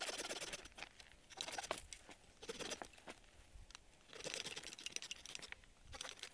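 Dry wooden branch being handled by hand: several short, irregular bursts of crackling and tearing, like bark and small twigs breaking.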